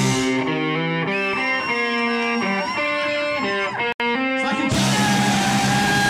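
Music led by electric guitar, with bending, sustained notes. It drops out for an instant about four seconds in and gives way to a denser, noisier passage with held tones.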